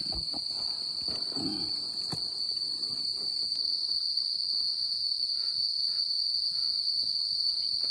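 Crickets chirring in a steady, high-pitched night chorus.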